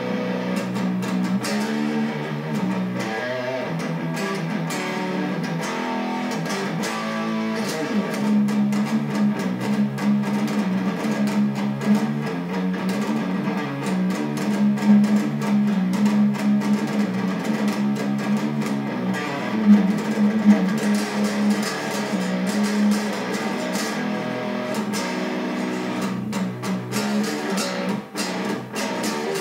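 Chapman ML7 seven-string electric guitar played through an amplifier with the gain turned up, with one pitch slide downward about seven or eight seconds in.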